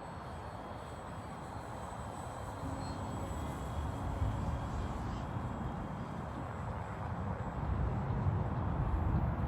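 Wind buffeting the microphone in gusts, growing stronger near the end, over a faint steady high whine from the Carbon Cub S+ RC plane's electric motor and propeller.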